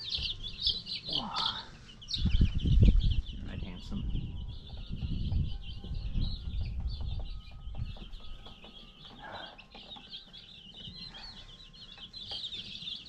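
A brooder full of chicks peeping nonstop, a dense chorus of short, high, rapid peeps. From about two to eight seconds in, a low rumbling rustle rises beneath the peeping, loudest about three seconds in.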